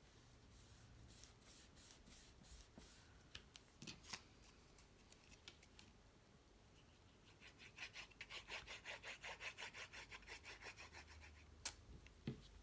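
Faint rubbing on cardstock, a hand stroking quickly back and forth over paper at about four or five strokes a second for a few seconds, followed near the end by a sharp click.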